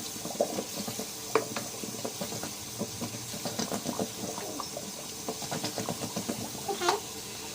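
Water running from a tap into a sink while a water bottle is rinsed under it, splashing with frequent small knocks and sloshes.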